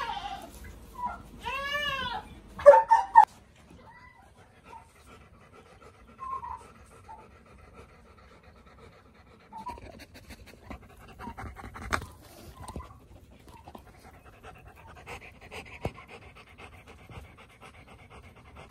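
A dog panting, with a kitten meowing once near the start and a couple of loud sharp sounds about three seconds in.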